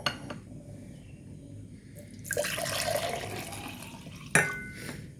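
Liquid poured into a glass for about two seconds, starting about two seconds in, followed by a sharp clink near the end.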